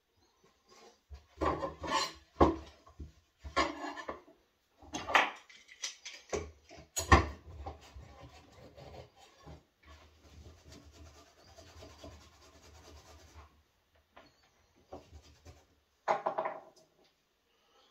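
A steel bar clamp is set and screwed tight onto the edge of a laminated desk shelf. First come several sharp knocks and clacks, the loudest about seven seconds in, then several seconds of steady rubbing and scraping as the handle is turned, and one more clatter near the end.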